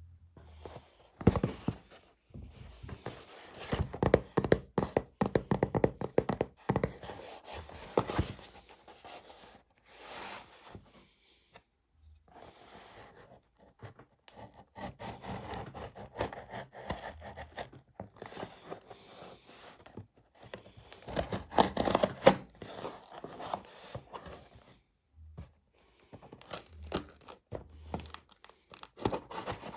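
Packaging being handled and opened by hand: tearing, crinkling and scraping of wrapping and box, in irregular bursts with short pauses, the loudest near the start and a little past the middle.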